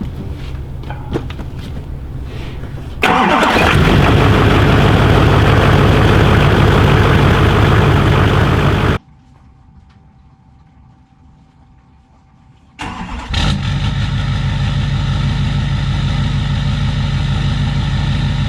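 LBZ Duramax 6.6 L V8 turbo-diesel running loud, freshly fitted with an EGR delete and a new downpipe. It cuts out abruptly about nine seconds in, then starts again near the end and settles into a loud, steady idle.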